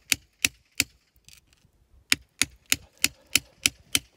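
Hammer blows on a steel chisel wedged into a crack in the quarry rock, sharp metal-on-metal strikes about three a second: three blows, a pause of about a second, then a steady run of seven more. The chisel is being driven in to split the rock and free zeolite crystal specimens.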